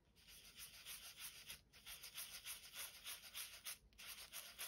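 Wet paintbrush scrubbing water into a soft pastel swatch on sketchbook paper: faint, quick scratchy back-and-forth strokes, several a second, with two brief pauses.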